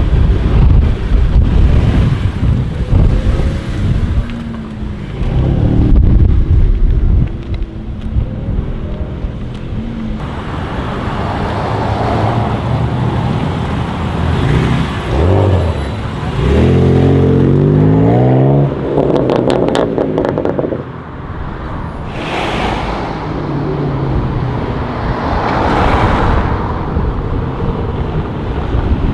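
BMW M4 F82's twin-turbo straight-six through a full Akrapovic titanium exhaust, driven hard: the engine note climbs steeply under acceleration a little past the middle, followed by a quick run of sharp exhaust pops and crackles. Two loud rushing swells of noise come near the end.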